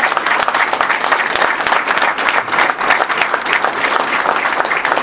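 Audience applauding: many people clapping at once in steady, dense applause.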